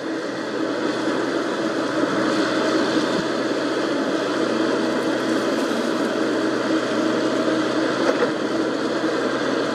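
Komatsu PC78US mini excavator's diesel engine running steadily, a constant hum with a steady pitched note over it.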